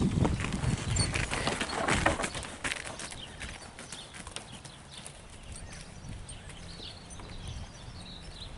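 Ridden horse's hoofbeats on an all-weather arena surface. They are loud as the horse passes close by in the first two to three seconds, then fade as it moves away.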